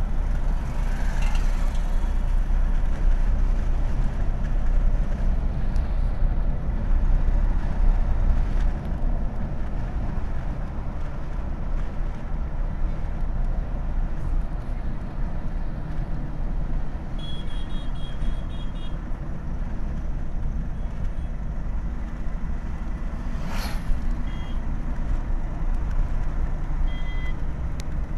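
Steady low engine and tyre rumble inside the cabin of a Mahindra Bolero cruising along a highway. A run of short high beeps comes about two-thirds of the way through, and a brief click follows a little later.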